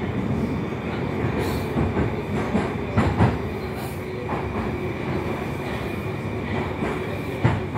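Moscow-2020 (81-775) metro train heard from inside the car as it runs into a station: a steady rumble of wheels on rail with a faint whine, and a few sharp clicks over rail joints about three seconds in and near the end.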